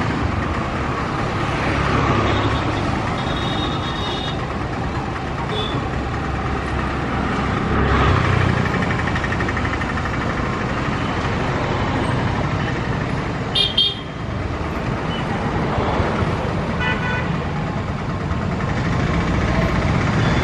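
Steady road-traffic rumble with a few brief vehicle horn toots.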